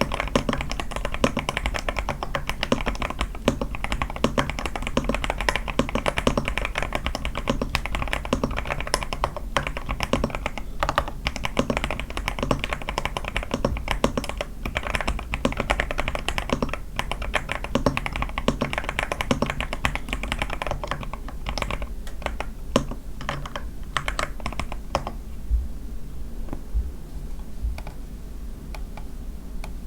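Typing on an A81 mechanical keyboard with lubed Sky switches, a tape mod and lubed stabilizers: a steady run of keystrokes that stops about 25 seconds in, followed by only a few light taps.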